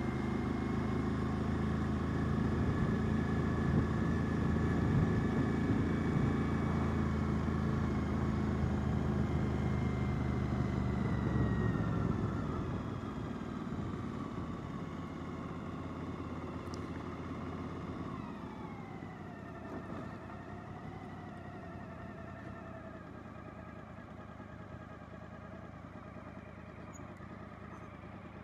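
Suzuki V-Strom 1000 motorcycle's V-twin engine running steadily under way, then going quieter about twelve seconds in as the throttle closes and the bike slows, with a falling whine a few seconds later.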